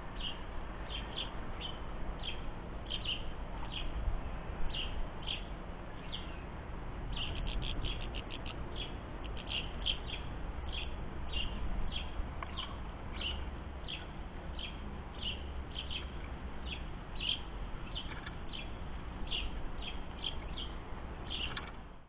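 Small songbird chirping over and over in short high chirps, about one or two a second, with a quick run of notes about seven seconds in. A low rumble runs underneath.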